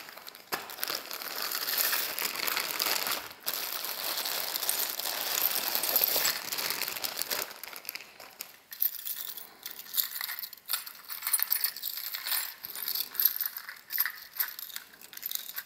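A heap of metal costume jewelry (brooches, chains, pendants) tipped out of a plastic zip bag and spread by hand: a dense metallic jingling rattle for about the first seven seconds, then scattered separate clinks as pieces are pushed around.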